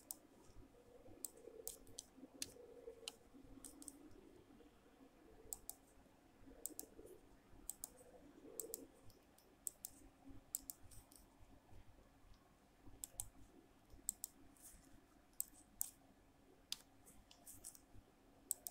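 Faint computer mouse clicks, often in quick pairs, coming irregularly as dialog buttons and menus are clicked, over a quiet room hum.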